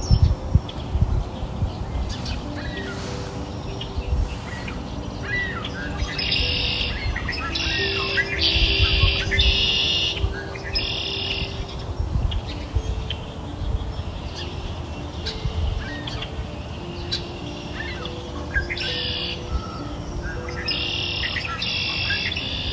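Birdsong over soft background music with long held notes: rapid high chirping trills come in clusters, one in the middle and another near the end.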